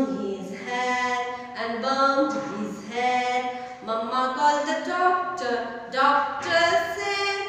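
A woman singing a children's counting rhyme alone, with no accompaniment, in held notes phrase by phrase.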